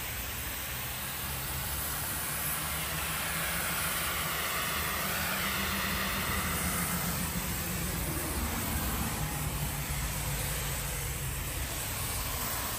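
Pressure washer spraying water onto a car's painted body panel, rinsing off soap: a steady hiss of spray over a low, steady hum.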